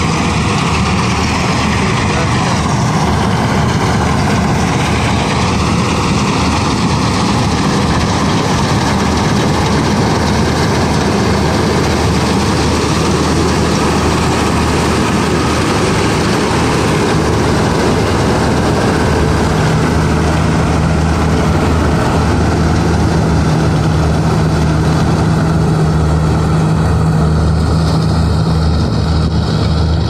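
Malkit combine harvester running steadily while cutting wheat: engine and threshing machinery, with a steady low hum that grows stronger about two-thirds of the way through.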